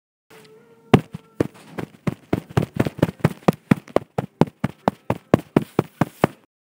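A rapid series of sharp hits, about four a second, starting about a second in and stopping shortly before the end. They play as fight sound effects while two Lego minifigures grapple in close-up.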